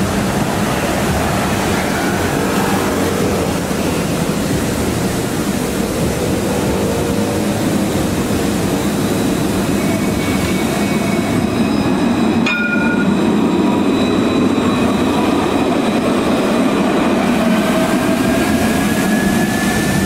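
Alstom Citadis 302 electric trams running along street track: a steady rolling rumble with a faint electric motor whine that falls in pitch early on and rises again near the end.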